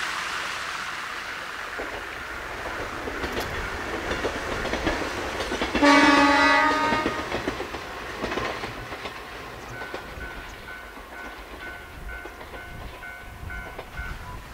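A Yoro Railway electric train runs past on the line and fades away with a rattling clatter. About six seconds in it gives one loud horn blast lasting about a second. From about ten seconds in, a regular high beeping repeats a few times a second.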